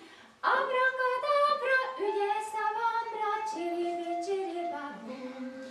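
A woman singing a melody without accompaniment, holding each note and stepping up and down in pitch; the singing starts about half a second in.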